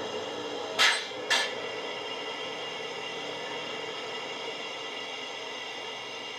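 Bachmann Class 70 model's DCC sound decoder playing a Class 70 diesel engine idling through its EM1 speaker. The idle is a steady hum with faint steady tones, broken about a second in by two short, sharp hisses half a second apart.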